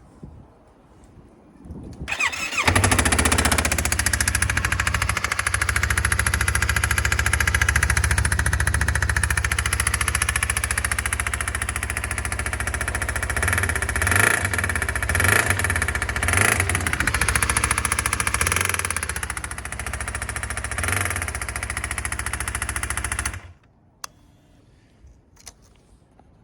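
Yamaha YZF-R25's parallel-twin engine cranked on the electric starter about two seconds in, catching and running with a few brief revs, then cut off suddenly near the end. The engine has an abnormal noise, which the owner reports as a fault.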